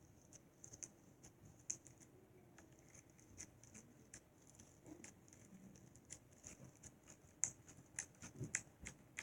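Slime being handled: faint, irregular sticky clicks and small pops, a few of them sharper near the end.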